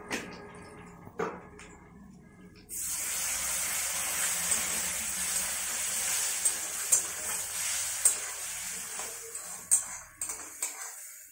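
A few spoon clinks, then a sudden loud sizzle as something wet hits the hot oil in an aluminium kadai at about three seconds in. The sizzle goes on while a metal spatula stirs and scrapes the pan with sharp clinks, and it dies away near the end.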